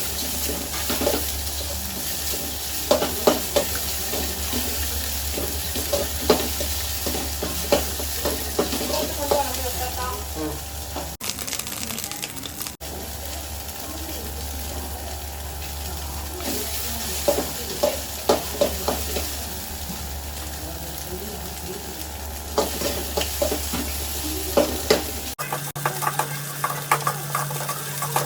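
Fried rice sizzling in a hot pan while a spatula stirs it, with frequent metal scrapes and clinks against the pan over a steady sizzle. The sound breaks off and changes abruptly twice.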